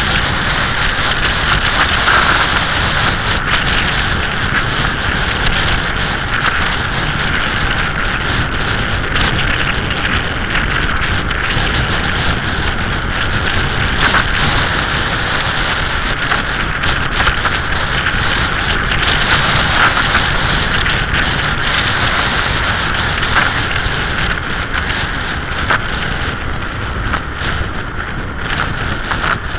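Wind rushing and buffeting over an action camera's microphone on a motorcycle at cruising speed, with frequent crackles, over the low running noise of the Suzuki SV1000S V-twin engine.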